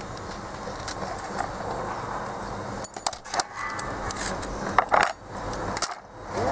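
Metal rail and plastic sleeper ties of an LGB G-scale curved track section clicking and clinking as the rail is pried and slid out of the ties by hand, with a handful of sharp clicks in the second half over steady background noise.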